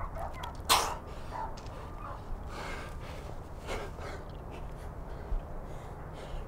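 A rock climber's forceful exhales during hard moves: one sharp, loud breath about a second in, then fainter breaths a few seconds later.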